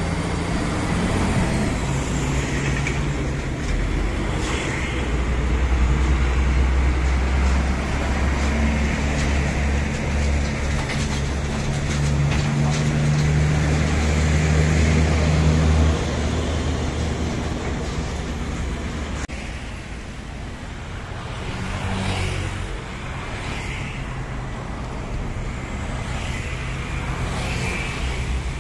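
Heavy diesel trucks passing close by in steady road traffic. A deep engine drone is the loudest part of the middle of the stretch and fades off about halfway through.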